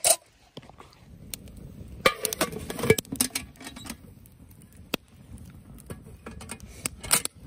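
Metal mess tin and its lid clattering as it is handled and set on a small folding wood stove, with loud knocks about two to three seconds in and again near the end. Between them, a wood fire crackles with scattered sharp pops over a low rumble.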